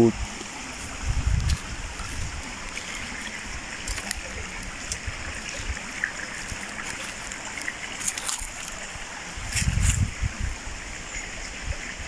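Shallow stream running over rocks, a steady rushing trickle, with a couple of low rumbles about a second in and near ten seconds, and a few brief crackles.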